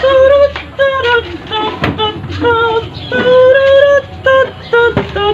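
A sung melody, short held notes stepping up and down in pitch, played loud through a bare woofer driver hooked to a power amplifier as a test of the repaired speaker.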